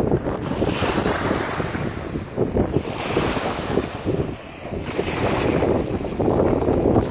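Wind noise on the microphone over small waves breaking and washing up a sandy beach.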